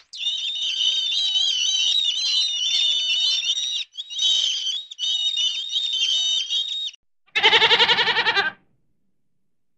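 A high, warbling animal call in three long stretches, then about a second of a quavering bleat near the end.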